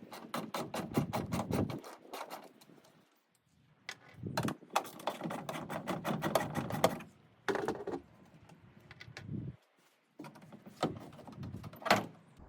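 Ratchet wrench with an 8 mm socket clicking in two quick runs while turning the tail light's mounting bolts, followed by a few separate clicks and knocks.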